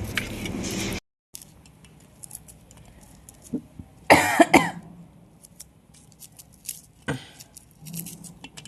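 A person coughing: a quick cluster of coughs about four seconds in and a single cough about seven seconds in.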